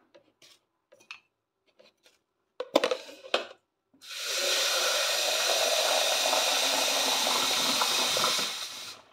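A few light clinks of kitchenware, then water running steadily from a tap into a container for about five seconds, starting about four seconds in and stopping abruptly.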